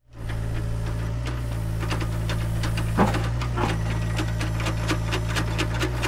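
Tractor engine running steadily, a low rumble with a regular knocking beat, with a couple of sharper knocks about three seconds in.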